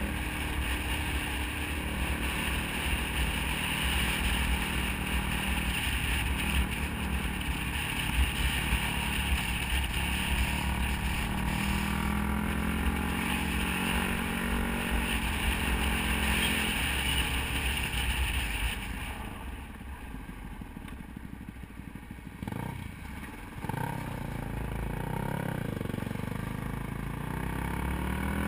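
Dirt bike engine running under throttle on a gravel trail. About two-thirds of the way in the throttle comes off and it goes quieter for a few seconds, then it picks up again.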